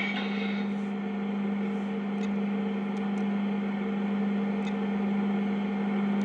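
Lionel Vision Line tank car's onboard sound effect of the tank being filled: a steady pump hum with a constant low tone, played through the car's small speaker.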